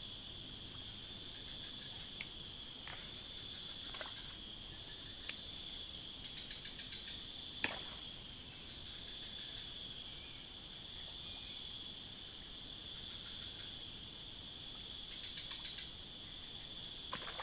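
A steady chorus of forest insects, a continuous high buzz. A few faint clicks and two short, rapid rattling trills sound over it.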